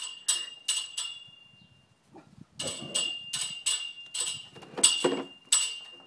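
An animal calling in quick runs of short, harsh calls, about three a second: four at the start, a pause of about a second and a half, then a steady run to the end.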